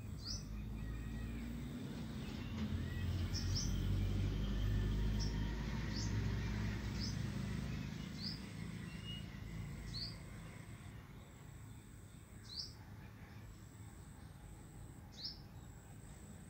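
A bird chirping outdoors: short, high chirps that fall in pitch, about ten of them at irregular intervals, over a low background rumble that swells in the first half and then fades.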